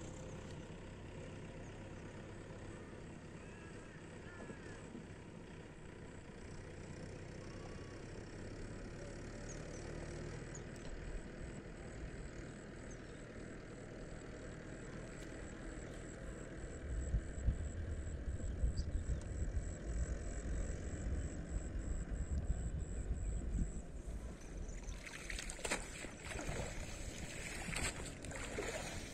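A cast net being hauled in by its rope through pond water, with splashing and dripping as the wet net comes out of the water near the end. A low rumble, like wind on the microphone, grows louder from about halfway through.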